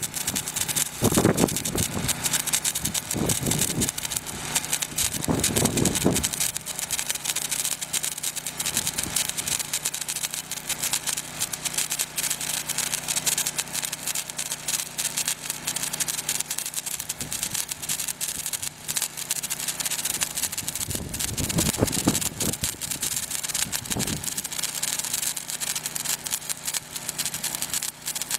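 Stick welding arc from a 1/8-inch 7018 rod at about 130–135 amps, a steady dense crackle as the bead is run on steel plate. A steady engine hum runs underneath, with a few low rumbles near the start and again near the end.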